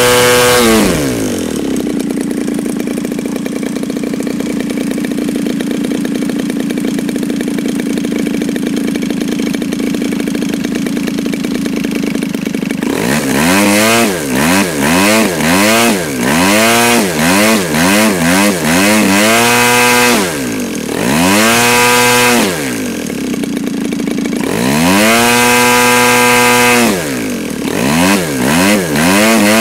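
CRRC Pro GP50R 50cc single-cylinder two-stroke gas engine turning a Mejzlik 22x8 propeller on a test stand. It drops from full throttle to a steady idle about a second in, idles, then from about halfway is blipped up and down in quick revs, with a couple of longer runs up to high revs near the end.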